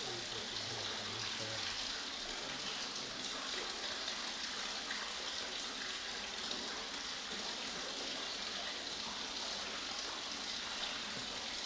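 Steady patter of water drops falling onto the surface of the water in a well.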